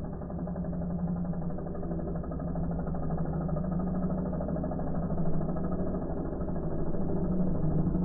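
Scooter engine running steadily as the rear wheel spins and churns in mud, sounding muffled.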